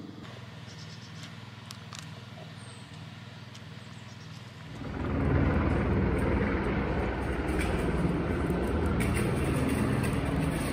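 Quiet outdoor background at first, then, about halfway through, a loud steady low rumble comes in and holds.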